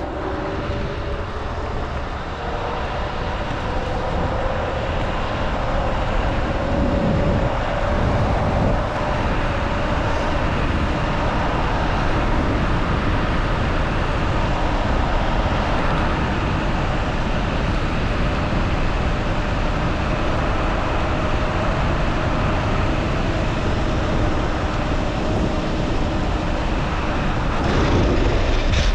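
Kaabo Wolf King GT Pro electric scooter being ridden: its hub motors whine, rising in pitch as it accelerates in the first couple of seconds, then holding steady. A steady rush of wind and road noise runs under the whine.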